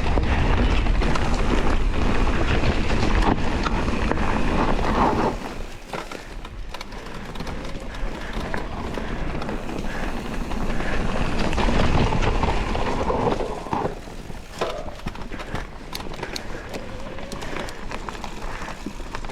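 Electric mountain bike riding down a dirt forest trail: tyres rolling over the ground and the bike rattling and knocking over bumps, loudest for the first few seconds, then quieter with scattered sharp knocks.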